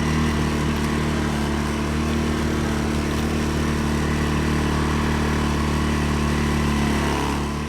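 CFMoto CF600 ATV engine running at a steady pitch under throttle, easing off near the end.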